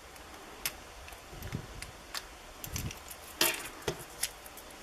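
Small, scattered clicks and taps from handling the opened wristwatch and its button-cell battery, one sharper click about three and a half seconds in among a few soft knocks.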